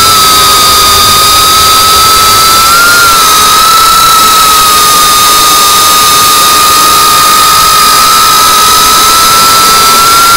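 FPV quadcopter's electric motors and propellers whining steadily in flight, heard through its onboard camera. A high whine that wavers slightly in pitch with throttle sits over a rush of air noise.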